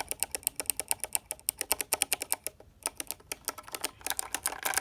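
A Kailh Box mechanical keyboard switch on a switch tester, pressed rapidly over and over and making sharp clicks several times a second, with a short pause about two and a half seconds in.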